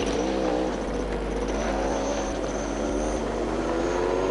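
Propeller engine of a homebuilt light aircraft running, its pitch wavering and then rising slowly near the end.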